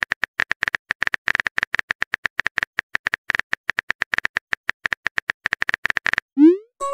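Phone on-screen keyboard tap sounds: a rapid, uneven run of sharp clicks as a text message is typed. Near the end the clicks stop, and a quick rising swoosh marks the message being sent.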